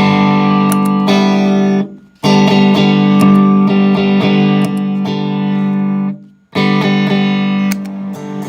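Electric guitar through a Hayashi Craft distortion pedal and a Palmer PDI DI box, playing loud sustained chords that are cut off twice and restruck. The tone has an odd, phase-inverse-like character, very weird, a problem that shows up only with this pedal connected to the Palmer PDI.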